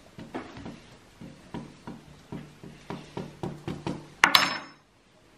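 A metal spoon rubbed in short, repeated strokes, about three a second, over the back of a leaf on an inked printing plate. Just after four seconds there is one sharp metallic clink with a brief ring, as the spoon is set down.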